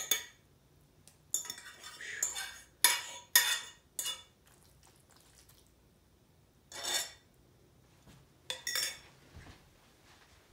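Cutlery clinking and scraping against a dish in a series of short clatters, some with a brief ring, bunched in the first few seconds and again near the end.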